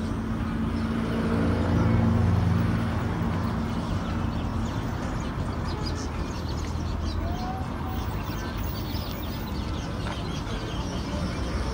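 Outdoor street ambience: a motor vehicle's engine runs close by, loudest about two seconds in and fading over the next couple of seconds, over a steady background of road noise.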